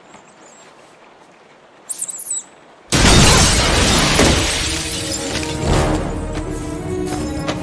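A film sound effect: quiet, then a brief burst of high-pitched squealing chirps, then about a second later a sudden, loud shattering crash of debris breaking through. After the crash comes a loud, sustained rumble under a dramatic film score with held tones.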